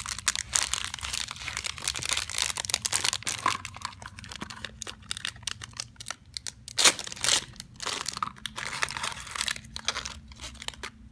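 Crinkly foil blind-bag wrapper being handled, crumpled and torn open: a dense, irregular run of crackles with sharper tearing strokes, the loudest tear about seven seconds in.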